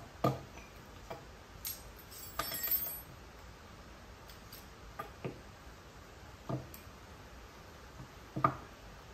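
Scattered clicks and metallic clinks of a paintball marker and steel hex keys being handled on a table, with a brief ringing metal clatter about two and a half seconds in and the loudest knock near the end.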